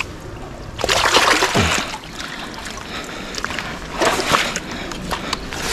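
Water splashing and sloshing among rocks, surging louder about a second in and again around four seconds.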